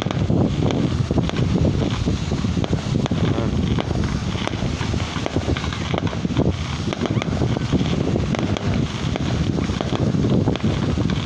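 Wind buffeting the microphone, with scattered pops of fireworks bursting.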